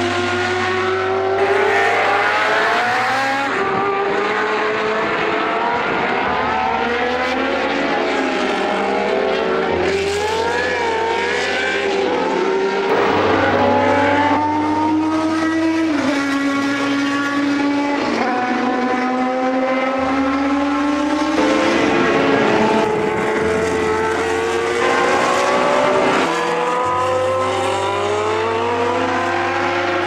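Early-1980s Formula One cars with Ford-Cosworth V8 engines running hard on track. The engine note climbs through the revs and drops sharply at each upshift, several times over.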